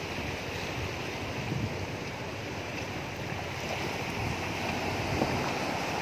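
Sea waves breaking and washing on a rocky shore, a steady rushing surf that swells slightly about four seconds in, with some wind on the microphone.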